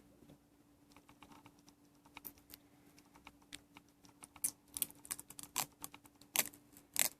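Typing on a computer keyboard: irregular key clicks, sparse at first, then quicker and louder from about four seconds in.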